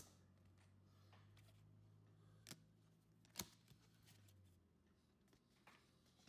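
Near silence with faint handling of trading cards and booster packs: a few soft clicks, two sharper ticks about two and a half and three and a half seconds in, over a low hum that stops about four and a half seconds in.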